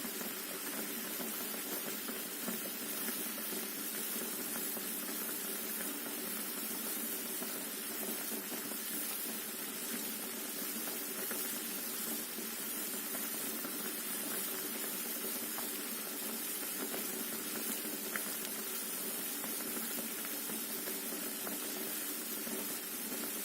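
Water boiling in a pot of potatoes and eggs: a steady bubbling hiss that keeps on without a break.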